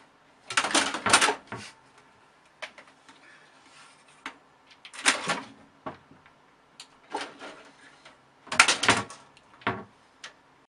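A cat scrabbling and clawing as it climbs the side of a computer case and the curtain beside it. The sound is short scratchy rustles and knocks in irregular clusters, several seconds apart.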